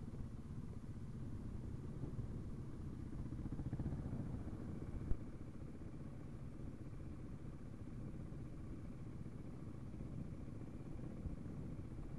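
Husaberg FE 570 dirt bike's single-cylinder four-stroke engine running steadily at low revs, a pulsing thump. A single sharp knock about five seconds in.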